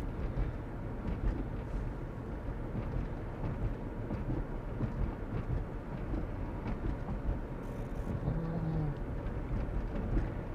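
Steady low rumble of car road and engine noise, heard from inside the cabin while driving.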